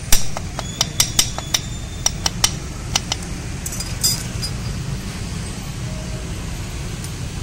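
Metal tools and engine parts clinking together as they are handled: a quick run of about ten sharp clinks over the first three seconds and one more about four seconds in, over a steady low background rumble.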